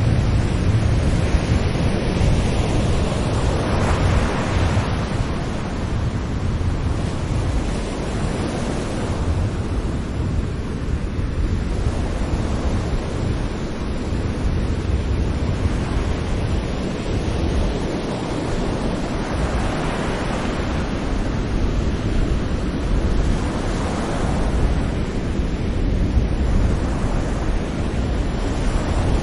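Ocean waves breaking gently on a shore: a continuous wash of surf over a low rumble, swelling as a wave breaks about four seconds in and twice more in the last third.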